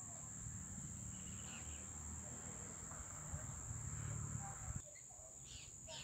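A steady, high-pitched insect drone, with a few faint bird calls scattered through it, over a low rumble that cuts off suddenly about five seconds in.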